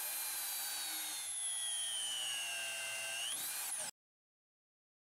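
Electric shear wrench running on a blind bolt, a high motor whine that slowly sinks in pitch as the bolt is tightened, then rises sharply and cuts off suddenly.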